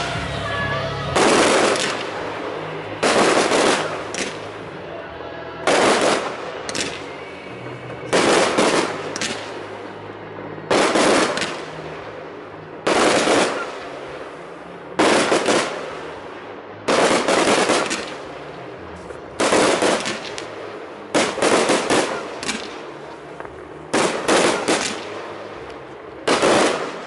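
Fireworks display: aerial shells bursting one after another, a loud bang every one to two seconds, some in quick clusters of two or three, each bang trailing off.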